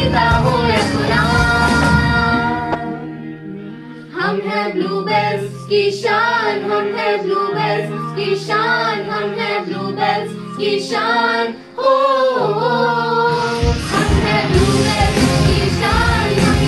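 A song sung by a group of voices, with acoustic guitar and keyboard at first. About three seconds in the music fades and dips, then carries on thinner, voices over held low notes, until the full accompaniment comes back near the end.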